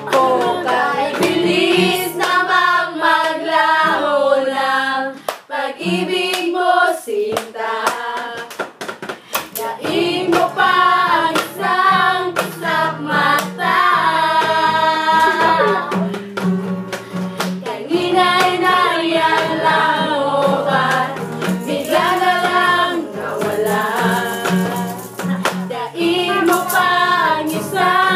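A group of young women singing together, loudly and in unison, with an acoustic guitar and sharp percussive hand hits keeping the beat.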